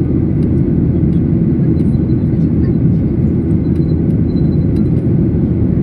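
Steady, loud cabin roar of a Boeing 737-800 in flight, the hum of its CFM56-7B turbofan engines and the rush of air over the fuselage heard from a window seat.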